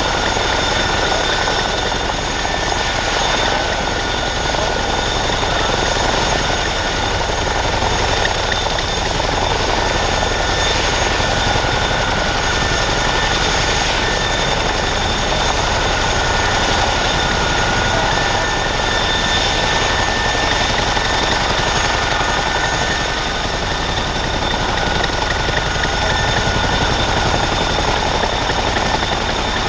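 Boeing CH-47F Chinook helicopter running on the ground: its Honeywell T55 turboshaft engines give a steady, high whine over a constant loud rush of rotor and engine noise.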